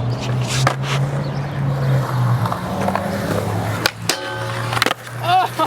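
Skateboard wheels rolling on concrete, then sharp clacks about four seconds in as the board hits a metal rail, followed by a brief ringing grind of the trucks on the rail during a feeble grind attempt.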